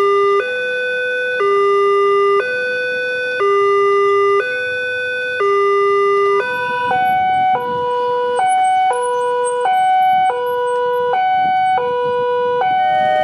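Railway level-crossing warning alarm: an electronic two-tone signal alternating high and low about once a second, sounding while the crossing lights flash and the barriers are lowered for an approaching train. About seven seconds in, a different crossing's alarm takes over, with a higher-pitched two-tone alternation that is a little faster.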